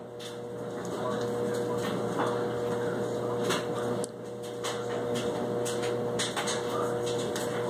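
Rustling of clothes and scattered soft knocks as a small child stuffs laundry into the drum of a front-loading washing machine, over a steady hum.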